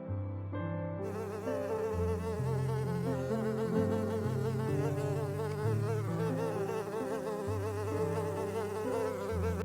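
A flying insect buzzing, its pitch wavering up and down, starting about a second in and stopping near the end, over background music.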